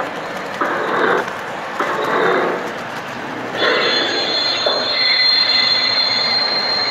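Lionel O scale box car's built-in freight sound system playing recorded freight-car sounds: rolling rumble and clatter in short bursts, then from about halfway a steady high-pitched wheel squeal.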